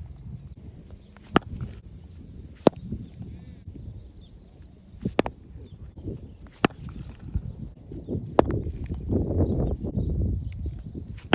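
Cricket bat striking a ball in a test of the repaired bat: five sharp cracks a second or two apart. A louder low background noise swells near the end.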